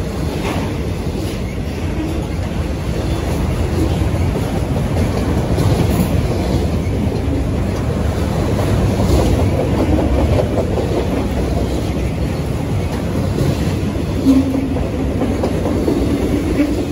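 Freight train of autorack cars rolling past close by: a steady rumble of steel wheels on the rails with clickety-clack over the rail joints and a brief louder knock near the end.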